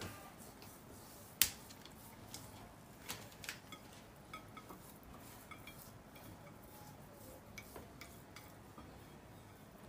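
Hands rubbing spice marinade into a whole white pomfret on a plate, with light scattered clicks and taps against the plate and one sharper click about a second and a half in.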